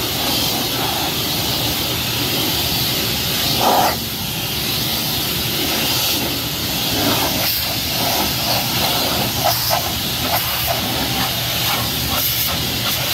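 Hot-water pressure washer jet spraying into a truck's engine bay: a steady hiss with steam.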